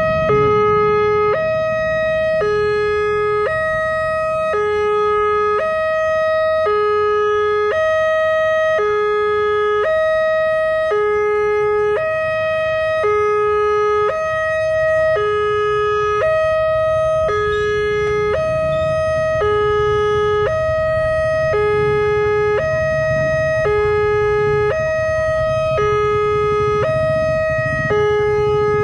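Electronic two-tone warning alarm of a railway level crossing sounding with the barrier down, a higher and a lower tone alternating about once every 1.35 s: the signal that a train is approaching. A low rumble lies underneath.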